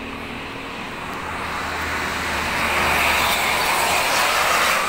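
A road vehicle passing close by on the street, its noise swelling and peaking about three to four seconds in.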